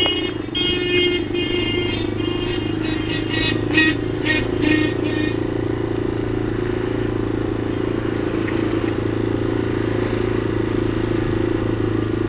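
Motorcycle engine running at a steady pace under way, with a series of short, high-pitched horn toots over the first five seconds.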